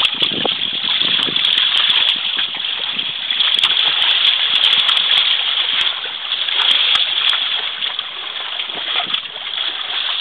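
Water rushing and splashing steadily past an outrigger sailing kayak under way, swelling and easing a little.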